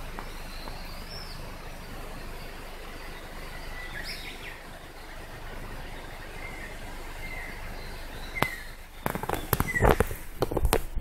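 Ruddy kingfisher calling: faint, short calls over a steady background hiss, one of them a falling call about four seconds in. Near the end, a burst of loud knocks and rustling covers the calls.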